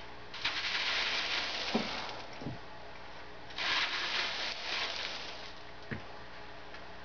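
Granular worm castings being rubbed by hand through a 1/8-inch wire screen: two spells of dry, gritty scraping, with a few dull knocks between them. The gritty sound is the sign that the castings are granular rather than soft and fluffy.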